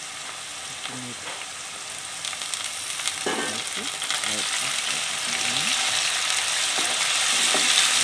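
Sliced onions and green chillies sizzling in hot oil in a nonstick pan. The sizzle grows louder, and from about three seconds in a wooden spatula stirs and scrapes them.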